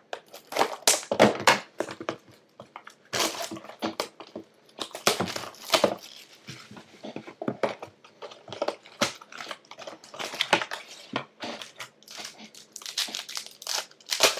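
Trading-card box packaging being opened by hand: irregular crinkling, crumpling and tearing of plastic wrap and pack wrappers in short bursts.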